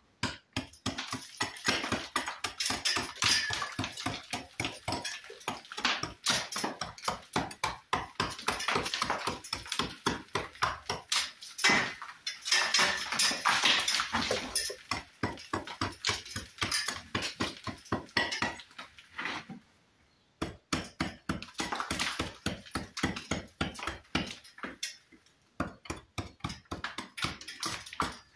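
Hammer striking a cold chisel in quick repeated blows against brick, with a sharp metallic clink to each strike. Short pauses come about two-thirds of the way through. The chisel is chopping out the face of a damaged brick to recess it for a cut brick slip.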